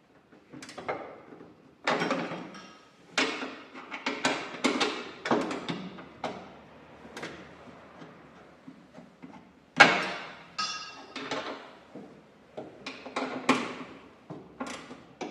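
Metal tools knocking and clacking against the shifter hardware as the short shifter's mounting bolts are tightened with a wrench, in irregular strokes. One sharp metallic clank with a brief ring comes about ten seconds in.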